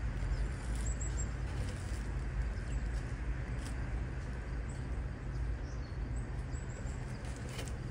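Outdoor ambience: a steady low rumble with faint, scattered high bird chirps and a few soft handling clicks.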